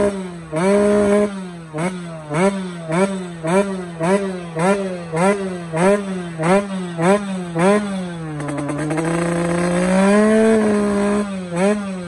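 Two-stroke motocross bike engine being blipped on the throttle, about two quick revs a second, each rising and falling in pitch. Near the end it holds one longer rev before a couple more short blips.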